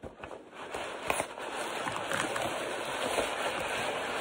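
Hands digging through loose packing peanuts in a shipping box: a dense, continuous rustling crackle of the light pieces shifting and tumbling, louder from about a second in.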